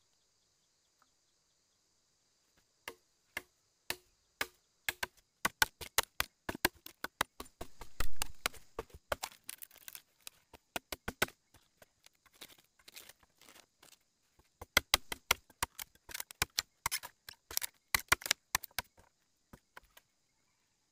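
Machete blade chopping and shaving into a green bamboo stalk: sharp chops, a few at a time at first, then quick runs of small cuts, with the heaviest chop about eight seconds in.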